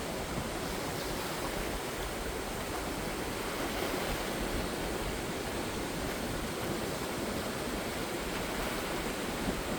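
Sea waves breaking and washing on the shore, a steady even rush of surf.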